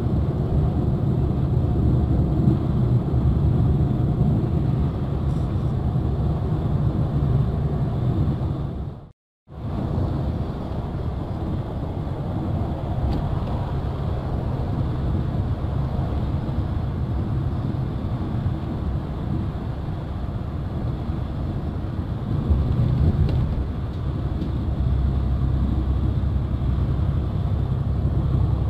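Engine and road noise heard from inside a bus cruising on a highway: a steady low rumble that drops out abruptly for a split second about nine seconds in.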